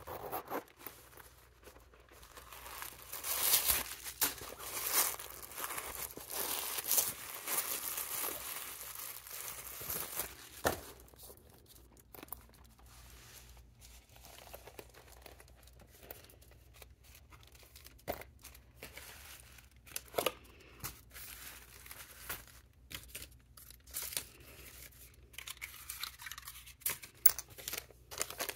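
Paper and plastic packaging rustling and crinkling as it is handled, loudest and most continuous in the first ten seconds, then scattered small rustles and taps.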